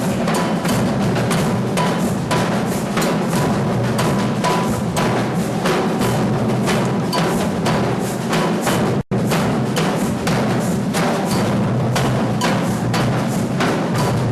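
A percussion group playing a steady, driving drum rhythm of dense, evenly repeated strikes. The sound cuts out for an instant about nine seconds in.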